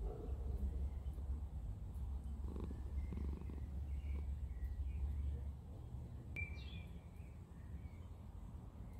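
British Shorthair cat purring with a steady low rumble that fades out about five and a half seconds in. Birds chirp now and then in the background, with one clear chirp about six seconds in.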